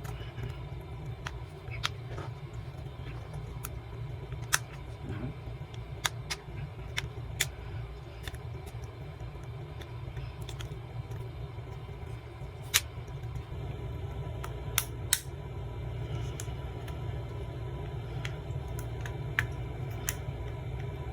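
A steel pick prying around the edge of a Vivo Y15s's plastic back cover, giving scattered sharp clicks as the cover's clips snap loose. A steady low hum runs underneath.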